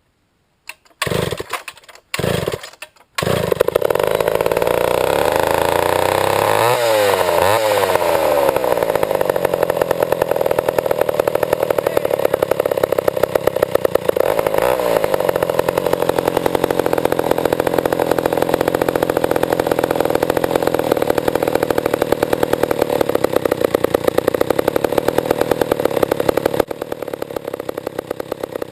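Old Pioneer two-stroke chainsaw fires briefly twice, catches about three seconds in and runs, revving up and down a few times before holding a steady high-speed run, then drops to a lower level near the end. It is being test-run after its carburetor adjusting screw was turned one full turn out, and it does not idle properly.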